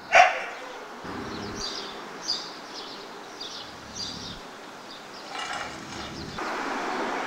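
Street ambience: a brief knock at the very start, then scattered short high chirps, and near the end a rising noise from an approaching car.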